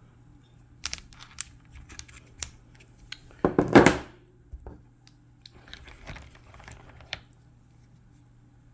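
Cut bowenite pieces being handled: scattered sharp clicks and knocks of stone, with rustling and one loud rustling scrape about three and a half seconds in.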